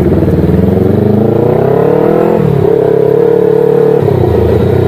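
Twin-cylinder Yamaha R25 engine in a modified old Yamaha Vixion motorcycle, heard from the rider's seat. Its pitch rises for about two seconds, drops sharply, then holds steady under throttle, with another small change near the end.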